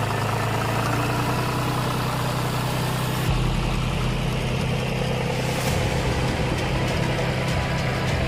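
Vehicle engine running steadily with a low, even hum; the sound changes abruptly about three seconds in.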